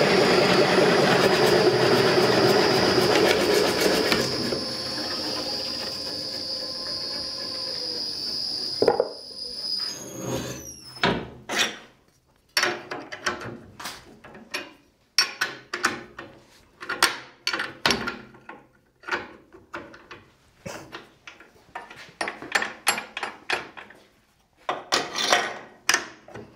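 Bowl coring machine's electric motor running loud and steady with the wood block spinning, then switched off about four seconds in and winding down over several seconds. After that comes a string of irregular knocks and clatters of metal and wood as the machine is handled.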